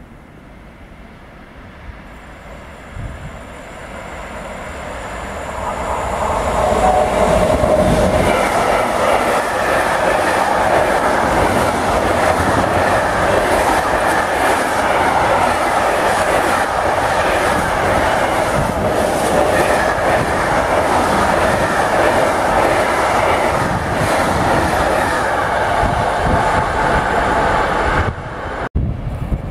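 Fast freight train of container wagons passing close by, the wheels running over the rails. It builds over the first several seconds as the train approaches, holds steady and loud as the wagons go by, and cuts off suddenly near the end.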